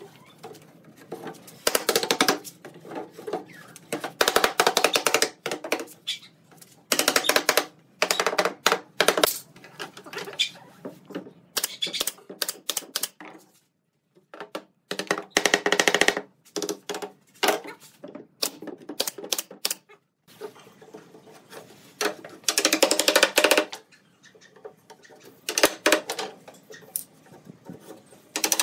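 Pneumatic brad nailer driving nails into pine pallet boards: short bursts of rapid clicks, about a dozen of them, with pauses between.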